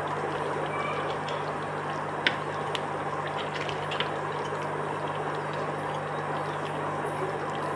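A steel spatula stirring chicken in thin gravy in a stainless-steel pan, with a sharp clink against the pan a little over two seconds in and a few lighter clinks after. Underneath is a steady hiss with a low hum.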